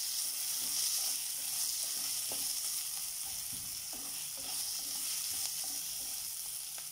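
Chopped onions and cumin seeds sizzling in hot olive oil in a pan as they are sautéed, stirred with a spatula that gives soft, occasional scrapes.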